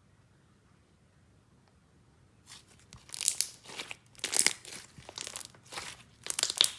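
Hands working a layered clear and jelly slime, making short crackly, sticky bursts about every half second. The bursts start about two and a half seconds in.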